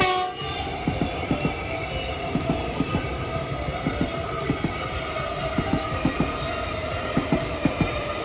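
Melbourne Metro X'Trapolis electric suburban train passing at close range: its wheels clack over the rail joints in a quick, uneven run of knocks under a steady whine.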